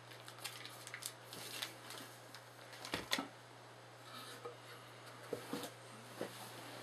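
Faint clicks and light knocks of a plastic flood light housing being handled and set down on a table, a little sharper about three seconds in, over a steady low hum.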